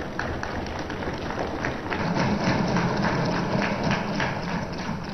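Assembly members applauding by thumping their wooden desks and clapping, many irregular knocks overlapping. It grows fuller and louder about two seconds in.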